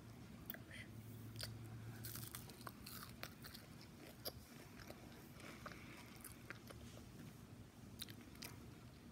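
A person biting into and chewing a crispy breaded fried strip close to the microphone: irregular sharp crunches and crackles of the coating breaking between the teeth.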